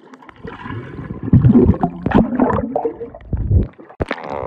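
Swimming-pool water splashing and gurgling close to the microphone, coming in irregular surges.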